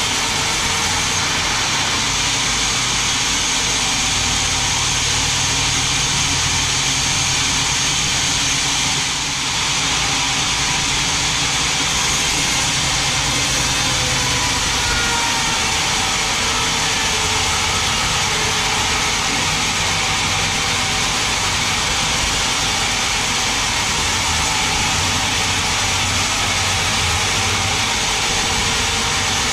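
Large sawmill band saw running and cutting lengthwise through a big mahogany log, a steady, loud machine noise throughout with a slight dip about nine seconds in.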